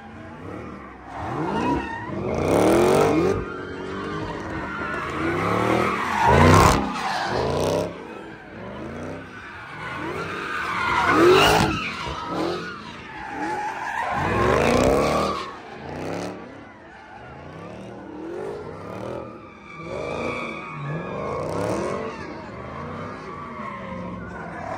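A car doing donuts: the engine revs up and down over and over with tire squeal, swelling loudest several times as the car circles close by, then settling somewhat quieter for the last several seconds.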